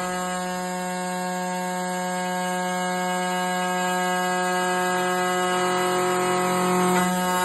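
Glass-processing machine running with a steady buzzing hum at one unchanging pitch, with water spraying onto the glass panel. The hum wavers briefly about seven seconds in.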